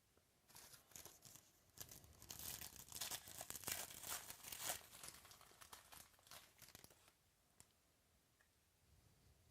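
Crinkling and tearing of plastic or foil trading-card packaging as it is opened and handled, a busy run of crackles that dies away about seven seconds in.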